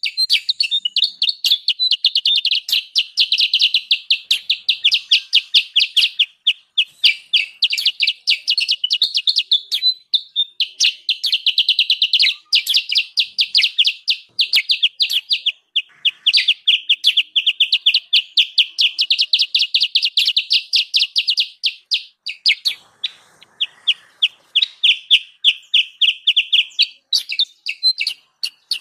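Small songbirds chattering in a bird-lure recording: fast runs of sharp chips, many a second, in bouts of a few seconds with short breaks between them.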